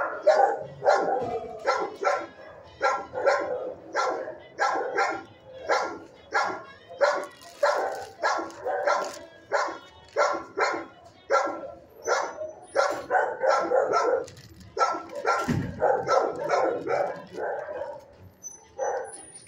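Dogs in neighboring shelter kennels barking repeatedly and steadily, about two to three barks a second.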